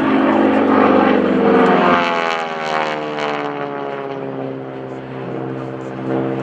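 North American SNJ-5 Texan's Pratt & Whitney R-1340 radial engine and propeller running in aerobatic flight overhead. The drone slides down in pitch from about two seconds in, dips in loudness, then swells again near the end.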